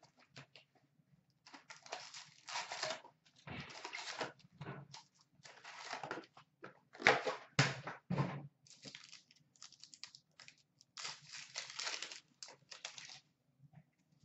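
A hockey card pack's wrapper torn open and crinkled, then the cards slid out and handled, in a run of irregular rustling and crackling bursts; the loudest come about seven to eight seconds in.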